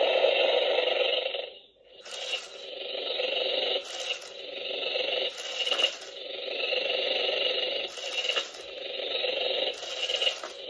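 Battery-operated Hungry Rattlesnake toy snake running, giving a steady rattling buzz that swells and fades in cycles about every two seconds, each starting with a brief sharper click.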